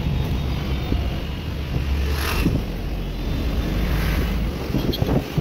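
Wind buffeting the microphone over a steady low rumble of road traffic, recorded from a moving vehicle, with a brief rushing hiss about two seconds in.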